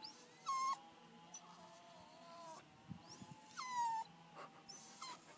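Jack Russell terrier whining to be played with. There are two loud high whines that drop in pitch, one about half a second in and another past the middle, with fainter whimpering between them.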